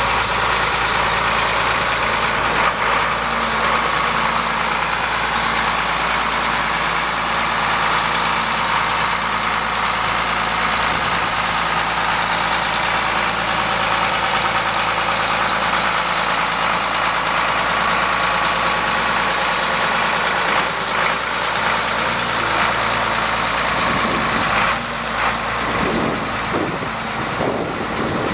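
A Case 3594 tractor's 8.3-litre six-cylinder turbo diesel runs steadily as the tractor drives past and away. The sound drops somewhat in the last few seconds.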